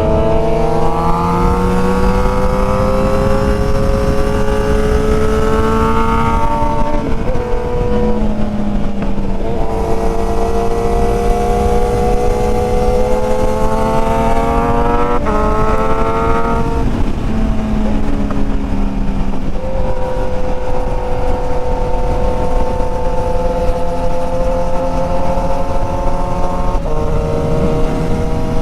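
Motorcycle engine under way, rising in pitch as it accelerates and dropping at gear changes about seven seconds in and again about sixteen seconds in, then running at a fairly steady speed. Wind rushes over the microphone throughout.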